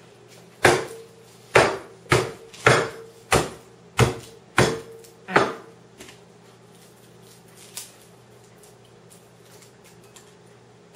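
A run of about eight sharp knocks on a kitchen countertop, roughly two a second, each leaving a short ring, as a head of garlic is struck and broken apart into cloves; after about five seconds they stop.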